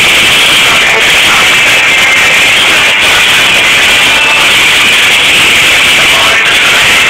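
Loud, harsh-sounding music, dense and noisy with no clear separate notes.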